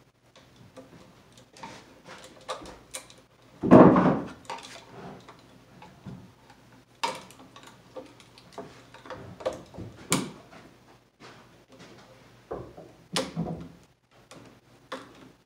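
Hand tools working at a plastic electrical box and its cable overhead: scattered clicks, taps and rattles, with a heavier thump about four seconds in and sharp knocks near ten and thirteen seconds.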